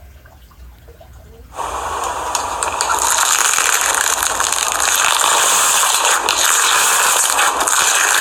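A loud, steady rushing hiss that switches on suddenly about a second and a half in and runs on without a break.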